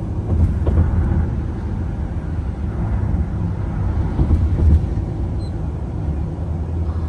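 Car on the move heard from inside the cabin: a steady low road and engine rumble that swells a little a couple of times.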